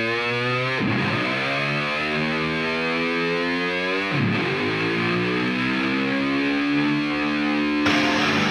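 Background music on distorted electric guitar: long held notes with deep pitch bends. A fuller, busier section starts near the end.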